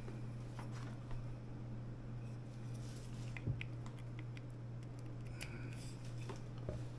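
Faint clicks and taps of a small USB-C to dual HDMI adapter and its cable being handled and plugged together, with one louder knock about halfway through, over a steady low hum.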